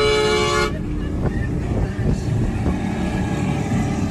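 A vehicle horn sounding a single steady note, cutting off less than a second in, over the steady low noise of a running engine that carries on after it.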